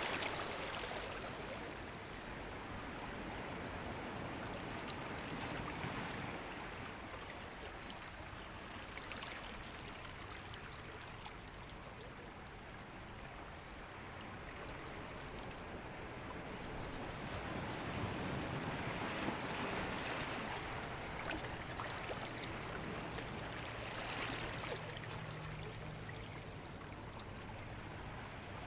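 Ocean waves washing in and drawing back, a steady rush of water that swells and eases every few seconds. A faint low hum comes in near the end.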